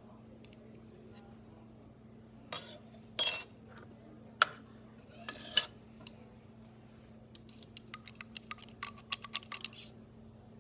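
Small white calcium chloride pellets clinking into a glass test tube of water as a quick run of light ticks, during the last few seconds. Earlier come two louder brief rustling scrapes and a single click from handling the pellets.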